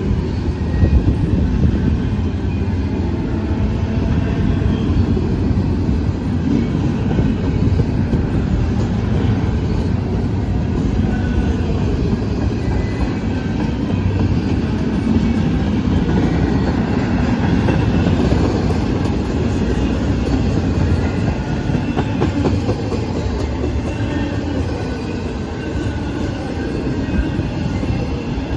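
CSX intermodal freight train rolling slowly past, its cars giving a steady rumble with the clickety-clack of wheels over the rail joints.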